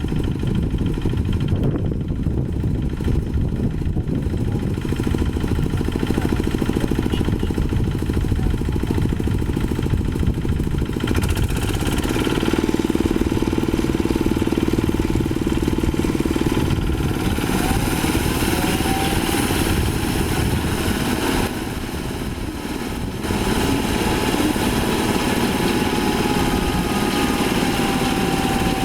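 Light diesel rice harvester's engine running steadily while working. Its sound changes about eleven seconds in and again a few seconds later, and it dips briefly in the second half before carrying on.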